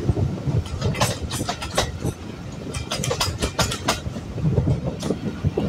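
Railway coaches running at speed, their wheels clicking over rail joints in quick groups over a steady rumble of running gear.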